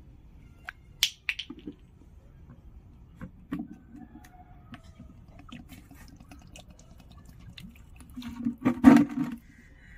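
Cap of a small plastic bottle of phenyl concentrate twisted open with a few sharp clicks about a second in, then the liquid poured out into an empty plastic bucket in a short gush near the end.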